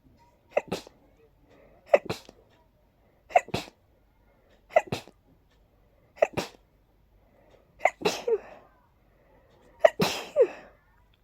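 A person sneezing in a rapid fit, about seven wet sneezes in a row, one every second and a half or so. The last two are longer and trail off in a breathy rush. They are allergy sneezes set off by pollen.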